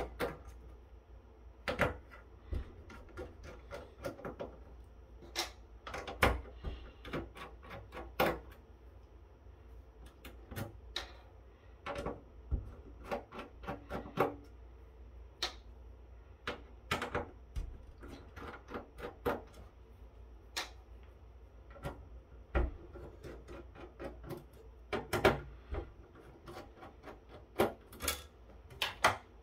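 Irregular clicks, taps and clinks of a screwdriver and small screws being worked out of a network switch's circuit board and metal chassis, with a few sharper knocks standing out from the rest.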